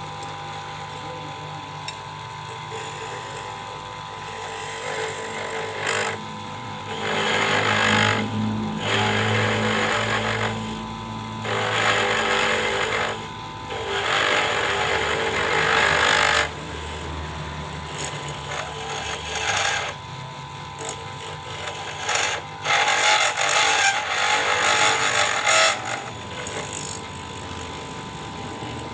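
A small lathe running with a steady whine, and a turning tool cutting into the spinning workpiece in several rough, scraping bursts of one to three seconds each.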